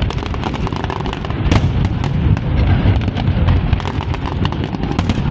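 Fireworks display: a dense run of sharp crackles and pops over a continuous low rumble of shell bursts, with one louder bang about one and a half seconds in.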